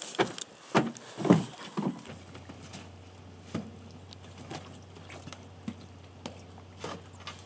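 A few sharp knocks and thumps in the first two seconds, then fainter knocks and ticks about every half second.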